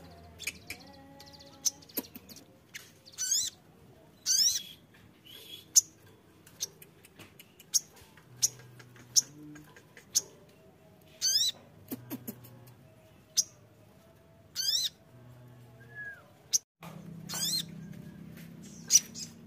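Sogon (sunbird) calling: sharp, short, high chirps scattered irregularly, with a few quick buzzy trills of rapidly sweeping notes.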